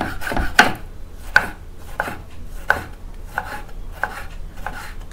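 Chef's knife slicing tomatoes on a wooden cutting board, each cut ending in a short tap of the blade on the board, at a steady pace of about one and a half cuts a second.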